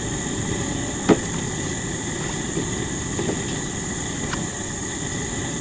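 A machete chops through the end of a corn ear once, sharply, about a second in, with a fainter knock later. Underneath runs a steady low rumbling noise, with a high, steady insect drone above it.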